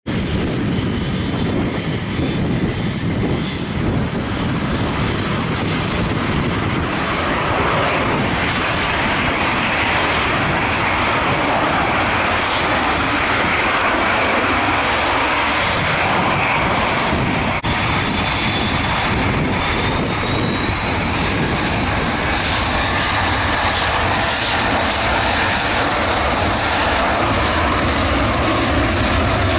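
Avro RJ85's four Honeywell LF507 turbofan engines running steadily, then spooling up for the takeoff roll, with a high whine rising in pitch about two-thirds of the way in and then holding.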